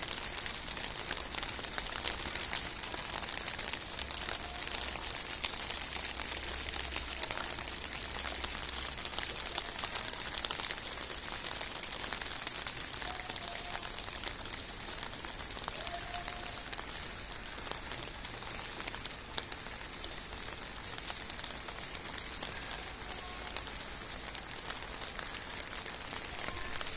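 Steady hiss of falling rain, with a few faint short tones in the background.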